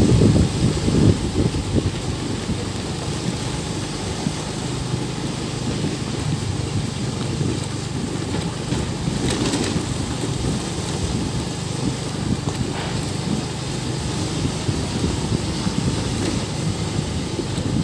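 Motorcycle engine running steadily at low riding speed, under a low rumbling noise, louder in the first second.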